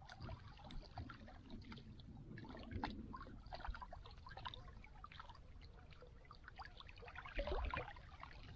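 Faint water lapping and trickling at a rocky lake edge, with scattered small clicks and a soft low bump about seven and a half seconds in.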